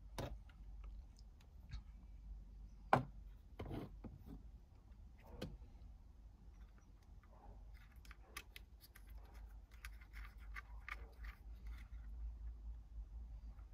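Plastic steering-column switch assembly being handled and worked loose: faint scattered clicks and knocks of plastic parts, the sharpest about three seconds in, with a run of quicker light clicks and rattles later on.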